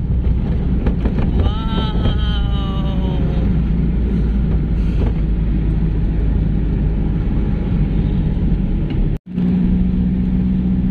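Steady road and engine noise of a car being driven, with a pitched tone that falls slowly in pitch about one and a half seconds in. About nine seconds in the sound cuts out briefly, and then a steady hum sits over the rumble.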